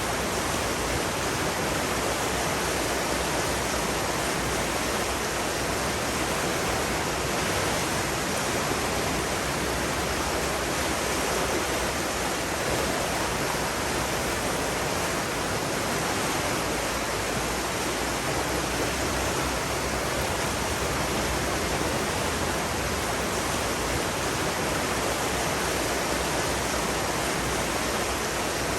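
Steady rushing water, an even unbroken hiss with no splashes, swells or other separate sounds.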